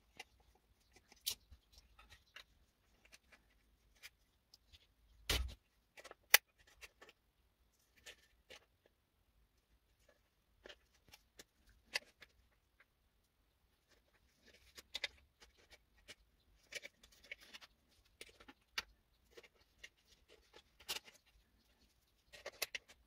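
Small metal tool clicks, scrapes and handling knocks as a screwdriver and then pliers work on the jack sockets of a small Behringer mixer. There is one heavier knock with a low thump about five seconds in, and denser bursts of scraping in the second half.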